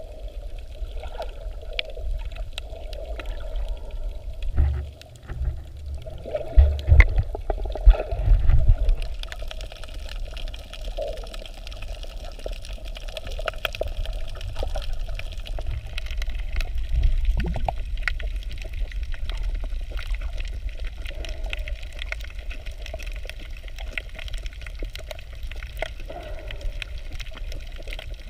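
Underwater water noise: a steady low rumble of moving water with scattered faint clicks, and a run of louder low surges from about 5 to 9 seconds in.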